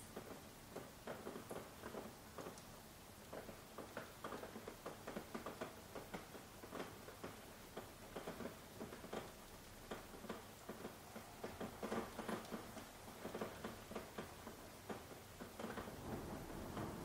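Soft rain: a quiet hiss of falling rain with many irregular light taps of individual drops.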